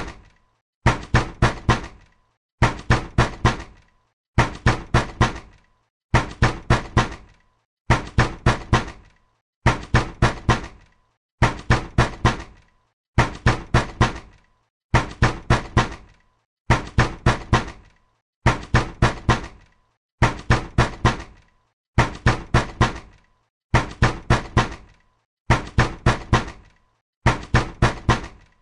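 Angry knocking on a door: quick bursts of about four hard blows, repeated evenly about every two seconds with short pauses between.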